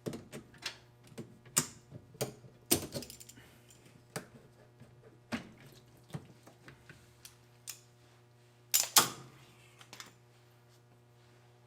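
Irregular sharp metallic clicks and clanks from locking pliers working loose the clamps that hold the motor of an overturned Whirlpool washer. The loudest clank comes near the end, and a faint steady hum runs underneath.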